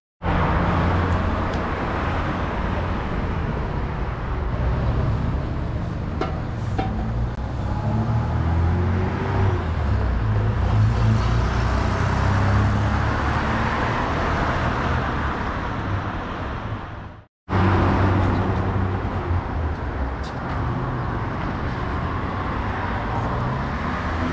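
Steady, loud outdoor rumble like road traffic, heaviest in the low end. It cuts out for a moment about two-thirds of the way through, then resumes.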